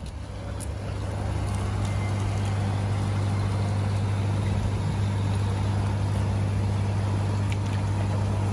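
Steady low machine hum with an even hiss over it, typical of a koi pond's electric pump or air pump running.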